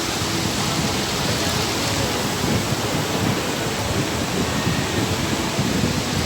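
Steady rush of surf with wind buffeting the microphone in uneven low rumbles.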